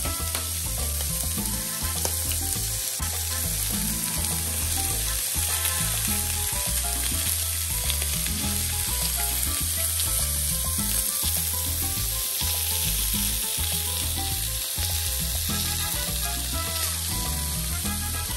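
Salmon steaks frying in oil in a nonstick frying pan, a steady crackling sizzle, with background music underneath.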